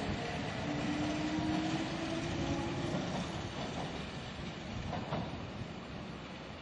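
Kintetsu electric train running away from the platform, its rumble fading as it goes, with a humming tone in the first half. A single short clank comes near the end.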